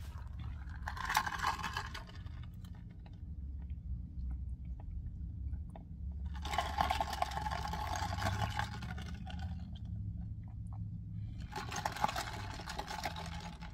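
A cold coffee drink being sucked up through a plastic straw: three drawn-out sips, the first about a second in, a longer one in the middle and another near the end.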